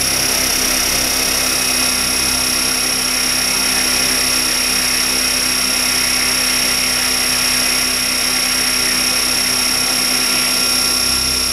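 Align T-Rex 550E electric RC helicopter running at steady speed on the ground, rotor turning: a steady high whine from its brushless motor and drive over the rotor noise.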